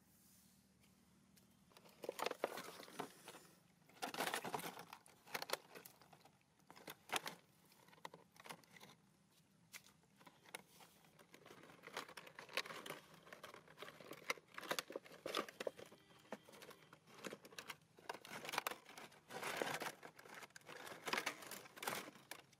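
Thin plastic bottle crinkling and crackling in the hands as it is gripped, tipped and shaken to empty fish out, in irregular bouts starting about two seconds in.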